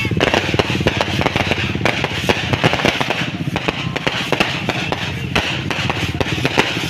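Fireworks going off in a dense barrage: many rapid, irregular pops and crackles with a few louder bangs, over a continuous din.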